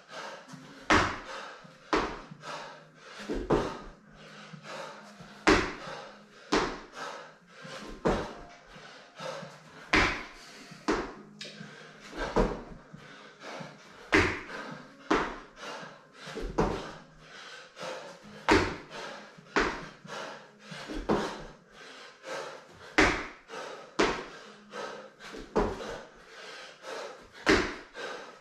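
Repeated thuds of hands and feet hitting rubber gym floor mats during burpees, about one a second, some landings louder than others.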